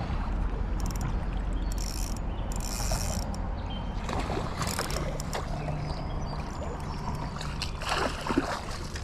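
Fishing reel being worked while a fish is played in, its mechanism whirring in several short spurts, over steadily running creek water.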